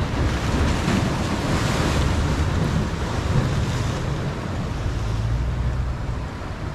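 Ocean surf washing against the rocks of a jetty, with a louder wash about a second in, and wind rumbling on the microphone.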